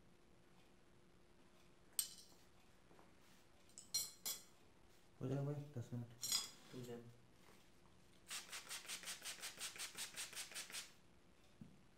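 Hand trigger spray bottle misting the hair in a rapid run of quick squirts, about six a second for nearly three seconds, late on. Earlier come a few sharp handling clicks and a short voice sound.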